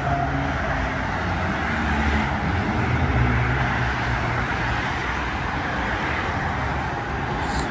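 Steady traffic noise from a multi-lane urban freeway, with cars passing continuously.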